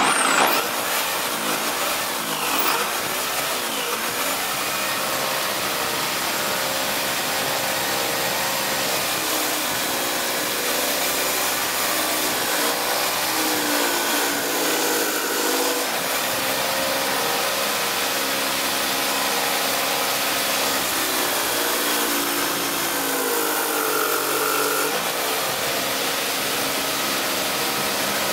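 Electric drill mounted in a homemade plywood stand, spinning an 18 cm sanding disc: it spins up at the start, then runs steadily with a hiss. Its pitch dips and wavers at times as a piece of plywood is pressed against the abrasive disc.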